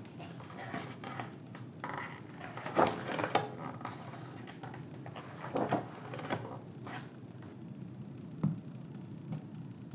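Paper pages of a hardcover book being turned by hand, a series of short rustles and flicks, then a single light knock near the end.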